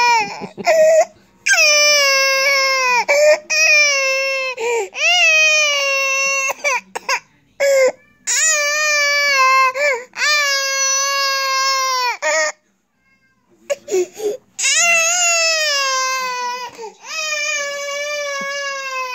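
Toddler crying hard: long, loud wails, each a second or two at a steady pitch that drops at the end, broken by sharp gasps for breath, with a short pause about two-thirds of the way through.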